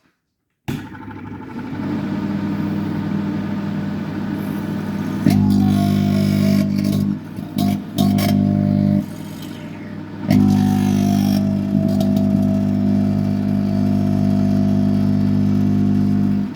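Modified microwave oven running at full power: a loud, steady mains hum from its transformer and magnetron, with a higher buzzing tone above it, starting abruptly under a second in. It gets louder about five seconds in, cuts out briefly a few times in the middle and comes back.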